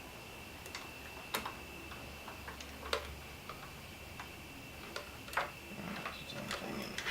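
Scattered, irregular light clicks and taps from hands working wires and plastic connectors of a wiring harness, over a faint steady high-pitched whine.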